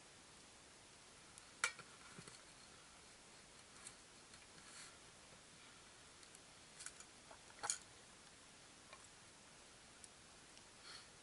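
Sparse, faint clicks and clinks of a tin can, can opener and steel cooking pot being handled, with near silence between them. The two sharpest clicks come about a second and a half in and near eight seconds.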